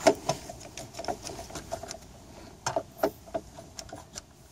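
A cheap clamp being worked loose and taken off the deck lumber: irregular clicks and light knocks, loudest right at the start and again about three seconds in.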